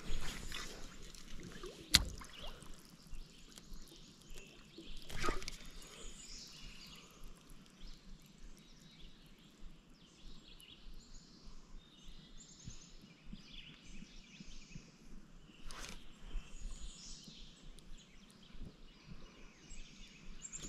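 Quiet creekside ambience with faint scattered bird chirps, broken by a few sharp clicks and knocks from handling a spinning rod and reel, the loudest about two seconds in and two more later.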